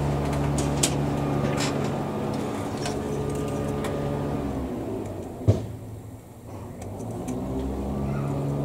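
Steady drone of a small engine on a garden machine running next door, dropping away about five seconds in and picking up again near the end. Over it come a few sharp clicks of sprue cutters snipping plastic model parts off the sprue, the loudest about halfway through.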